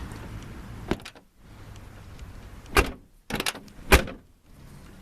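1995 Ford F-250 pickup door being shut twice, two solid slams with latch clicks between them as it is reopened, after a small knock about a second in. The door latches onto a newly bushed, lowered striker and closes with a little effort; its lower hinge is worn.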